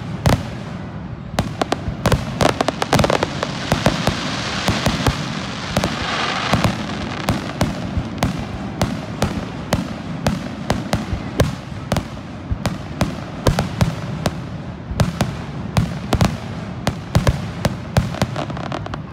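Aerial fireworks shells bursting in rapid succession, a dense string of sharp bangs several a second, with a stretch of hiss about four to six seconds in.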